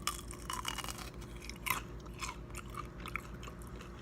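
A person chewing and biting fried pizza rolls close to the microphone, with irregular crisp crunches of the fried crust.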